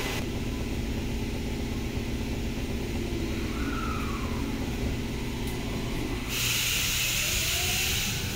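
Tokyo Metro Tozai Line subway train heard from inside the car: a steady hum with a short falling tone near the middle. About six seconds in a hiss starts, and the traction motors begin a rising whine as the train pulls away.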